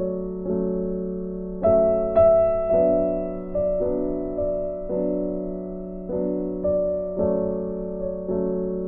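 Background piano music: gentle, evenly paced notes or chords struck about twice a second, each fading before the next.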